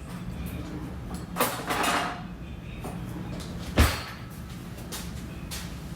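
Kitchen handling noises: a few knocks and clatters as things are moved about, the sharpest near the four-second mark, over a steady low hum.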